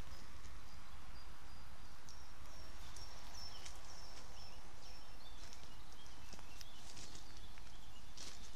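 Outdoor rural ambience: a steady low background rumble, with a bird chirping a run of short high notes in the middle.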